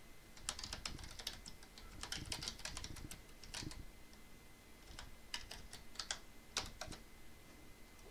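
Computer keyboard typing in short bursts of keystrokes separated by brief pauses, as a command is typed out.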